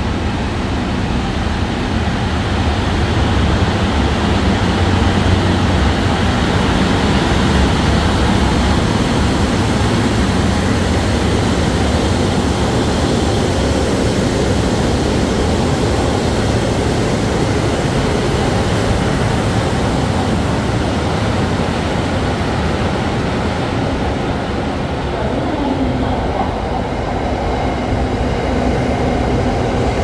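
KiHa 183 diesel multiple unit running along the platform as it pulls in, its engines and wheels giving a steady loud rumble. About 25 seconds in, an electric commuter train takes over, with a whine that rises in pitch.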